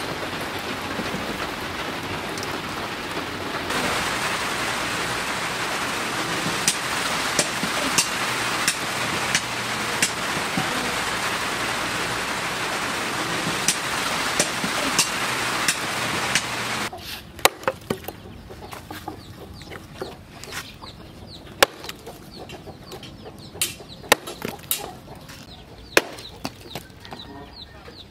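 Leaf-spring steel axe chopping into a charred log, sharp strikes of the blade biting into wood at irregular spacing, roughly one every second or two. For the first half they sit under a steady hiss that drops away about 17 seconds in.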